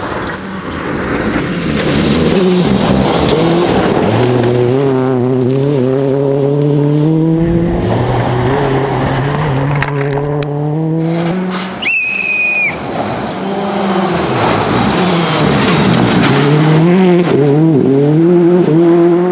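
Proton IRIZ R5 rally car's turbocharged four-cylinder engine working hard on a stage: it repeatedly climbs in pitch and drops back as it shifts gears and lifts off. A brief high-pitched squeal comes about twelve seconds in.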